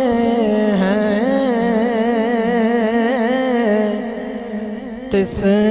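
A man singing a naat, an Urdu devotional song, drawing one word out into a long ornamented melismatic phrase with no words between lines, over a steady low drone. The voice softens near the end, breaks off briefly, then comes back in.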